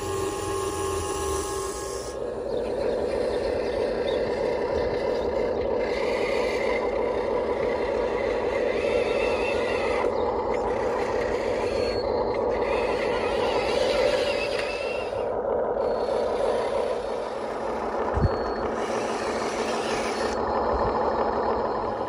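Radio-controlled excavator and dump truck working: the steady whir of small electric motors and gears. There is one sharp knock about 18 seconds in.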